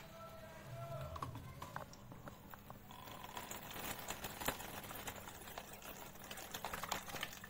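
Faint, irregular small clicks and taps of handling: hands on the phone and plastic kitchenware as a plastic strainer and jug are set up for straining ground cucumber, one tap a little louder about halfway through.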